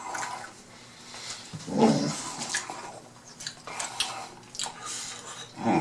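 Close-up eating sounds, chewing with small mouth clicks and smacks, and a short louder pitched sound about two seconds in.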